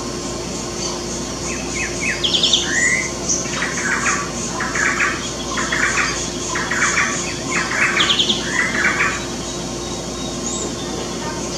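Green-winged saltator (trinca-ferro) singing: a few quick high notes, then a string of about six short, similar phrases, one after another for some seven seconds, starting about two seconds in.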